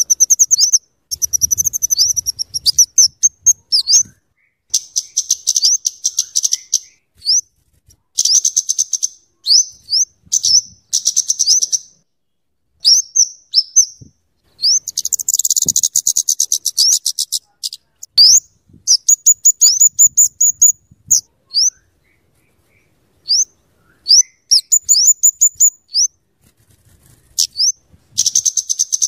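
Flowerpecker (burung kemade or cabe-cabean) calling: bursts of rapid, high-pitched ticking chatter, each about a second long, alternating with single sharp, thin notes, with short pauses between.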